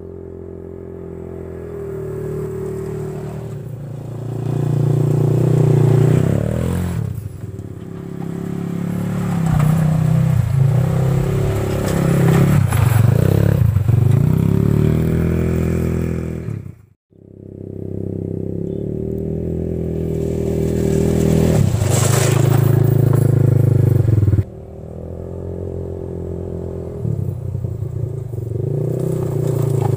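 Quad bike (ATV) engine running and being driven, its pitch rising and falling again and again as the throttle is opened and eased. The sound cuts out for a moment a little past halfway, and later drops suddenly in level.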